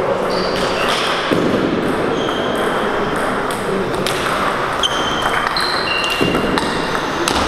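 Table tennis balls clicking off bats and bouncing on tables, a scattered series of short, high pings over the steady murmur of a large hall.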